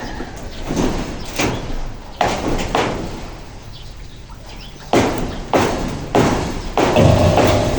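Hammer blows on roofing work: two runs of about four strikes each, roughly two-thirds of a second apart, with a short pause between the runs.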